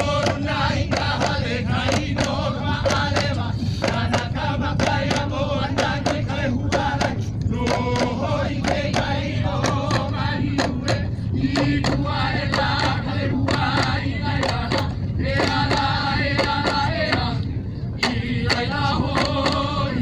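A group chanting in Hawaiian to the beat of ipu gourd drums, the gourds struck in a steady rhythm under the voices, with a short break in the chant near the end.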